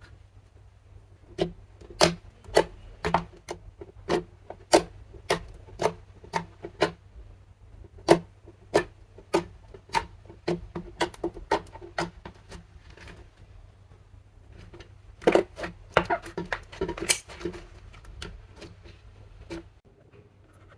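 Slime being squeezed and pressed by hand, giving a run of sharp clicking pops about two a second, with a denser cluster of pops a little past the middle.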